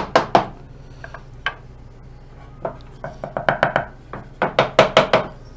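Hard wooden clacks and knocks in quick runs of several strikes: routed wooden drawer pieces being handled and knocked against the CNC router's table.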